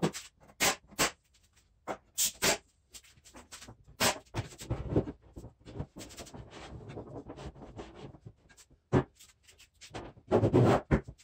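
Plywood shelf and scrap-wood spacers knocking and clattering against the plywood table frame as the shelf is shifted and set down: a string of sharp, separate wooden knocks, with a louder burst of clatter near the end.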